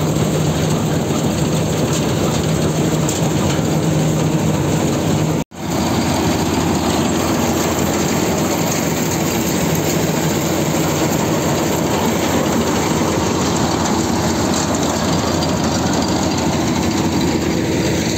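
Agri Prime combine harvester running while harvesting wheat: a loud, steady mechanical din of engine and threshing machinery, with a steady engine hum at first. The sound cuts out for an instant about five and a half seconds in, then carries on as an even rushing noise.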